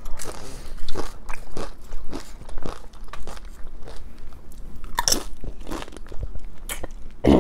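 Close-miked crunchy eating: tortilla chips being bitten and chewed, with irregular sharp crunches several times a second.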